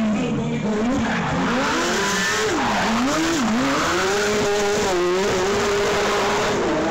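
Shortcar's motorcycle engine revving up and down repeatedly as the car is thrown around the course, with tyres squealing on the tarmac. Toward the end the revs are held steady and high.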